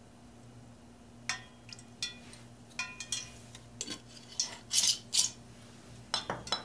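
Kitchenware clinking and knocking off to the side of the stove: a string of sharp metallic clinks with short ringing, several knocks and a brief scrape, over a low steady hum.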